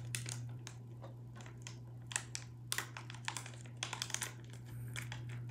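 A small G Fuel drink-powder packet being handled and torn open by hand: a run of sharp, irregular crinkles and clicks, busiest in the middle. A steady low hum lies underneath.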